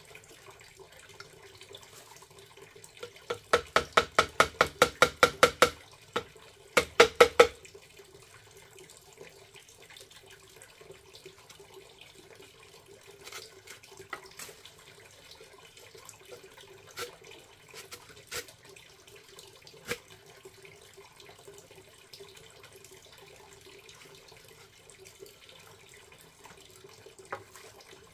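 Stream water running steadily. A few seconds in comes a quick run of about ten sharp strokes, about four to five a second, then a shorter run of five just after, with occasional light clicks later.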